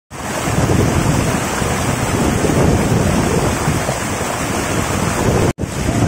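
Mountain stream rushing and splashing over rocks in a steady, full white-water roar. It drops out for an instant near the end, then carries on.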